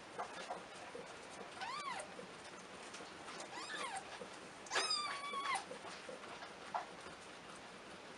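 Newborn kittens mewing: two short, high, rising-and-falling mews, then a longer held mew about five seconds in.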